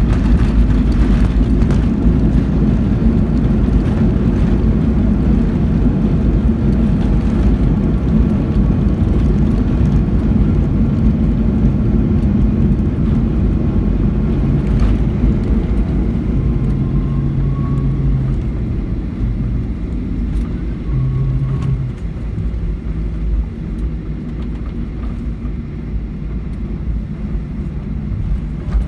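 Boeing 737-800 landing rollout heard from inside the cabin: a loud, steady rumble of engines and wheels on the runway with the ground spoilers deployed, easing off gradually in the second half as the jet slows.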